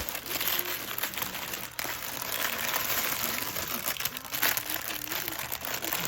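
Small plastic bags of diamond-painting drills crinkling and rustling as they are handled and sorted, with many small irregular ticks.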